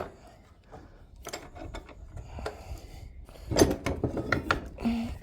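Metal hand tools clicking and clinking against a metal part, with a cluster of sharp knocks about three and a half seconds in.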